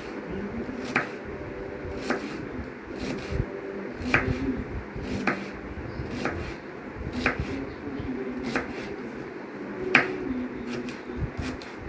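Kitchen knife chopping onions, with a sharp cut about once a second, roughly ten in all.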